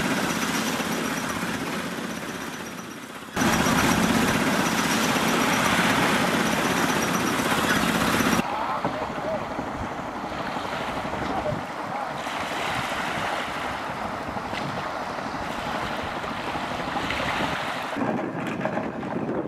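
Boat engine running steadily with wind buffeting the microphone. About eight seconds in, the engine sound cuts off abruptly, leaving quieter wind and water noise.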